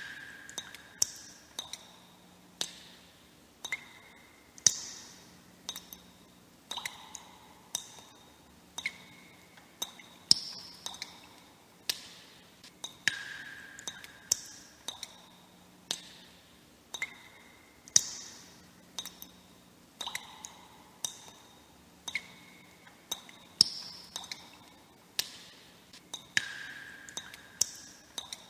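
Water droplets dripping in a steady run, more than one a second. Each drop is a short, pitched plink with a brief ring, and the pitch varies from drop to drop.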